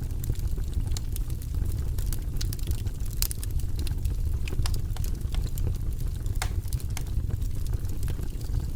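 Fire crackling: a steady low rumble of burning with frequent irregular sharp pops and snaps.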